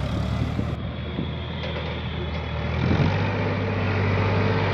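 Diesel tractor engine running steadily as it pulls a loaded trolley through sand, growing louder about three seconds in as it comes close.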